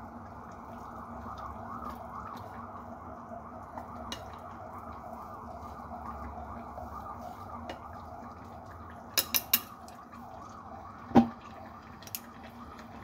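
Water boiling in a metal saucepan of rice vermicelli and squid balls, a steady bubbling while wooden chopsticks stir. Three quick clacks of chopsticks against the pan about nine seconds in, then a louder single knock about two seconds later.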